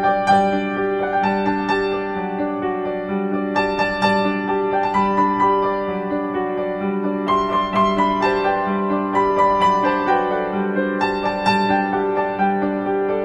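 Background music on a piano-like keyboard: a gentle melody of struck notes over steady low held tones.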